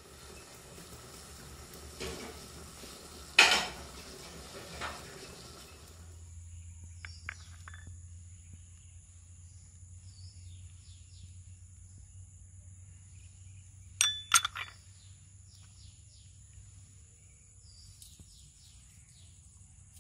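Clinks and knocks of china plates and kitchenware, the loudest about three seconds in and a quick cluster at about fourteen seconds. From about six seconds in, a steady high insect drone runs underneath, with short chirps.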